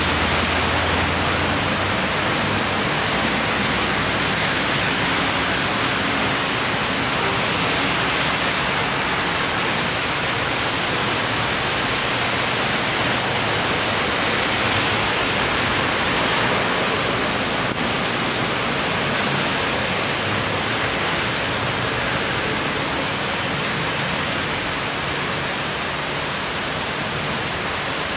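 Heavy rain pouring down steadily, a dense even hiss. A low rumble fades out in the first second or two.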